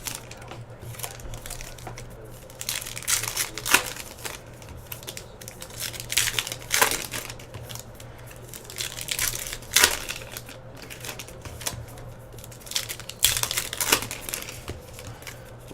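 Foil wrapper of a baseball card pack crinkling and tearing as it is opened, with the cards handled in short, irregular bursts over a steady low hum.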